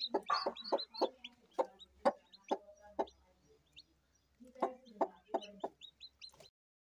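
Aseel hen clucking in quick runs of short low calls, with her newly hatched chicks peeping high over it. The calls pause for about a second midway, then resume.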